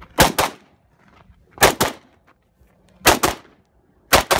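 AK-pattern rifle fired as four double taps, each pair of shots a fraction of a second apart and the pairs about a second and a half apart.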